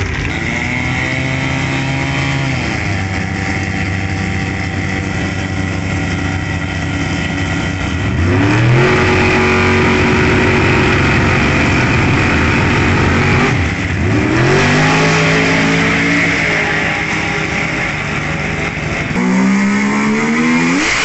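Drag car engines revving hard on the start line. The pitch climbs several times and is held high and steady for about five seconds in the middle, then drops and climbs again. Near the end, after a break, another car revs up.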